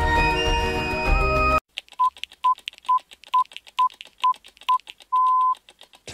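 Sustained synth music that cuts off abruptly about a second and a half in, followed by a countdown timer's electronic beeps: seven short beeps at one pitch a little under half a second apart, with faint ticks between them, then one longer beep.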